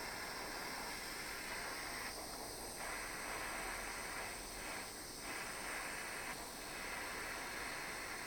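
Jeweller's soldering torch flame hissing steadily while heating a brass ring's seam, the hiss dipping briefly a few times, around two seconds in and again near the middle.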